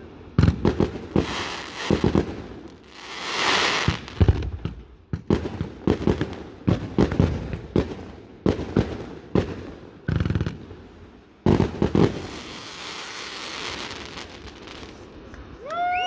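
Fireworks display: a long irregular run of sharp bangs from bursting shells, with two swells of hissing crackle, one a few seconds in and one near the end.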